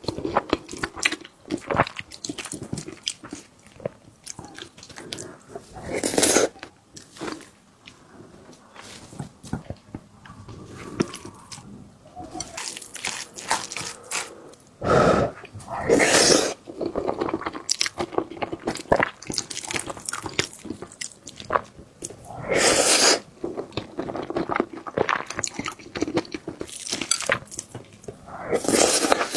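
Close-miked eating: steady chewing with wet mouth sounds and small crunches, and a few louder, fuller bites scattered through.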